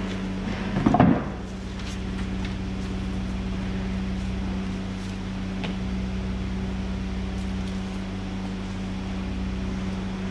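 Rummaging in a wooden crate: a short clatter and rustle about a second in as a board is lifted out, then a few faint knocks, over a steady low hum.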